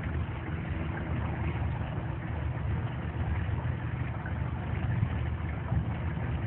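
Glass-bottom tour boat's engine running steadily, a low-pitched hum heard from on board.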